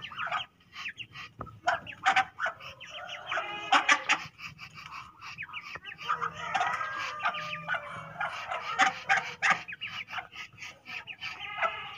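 A flock of young Muscovy ducks calling in their pen: many short, pitched calls overlapping, thickest around four seconds in and again from about six to ten seconds.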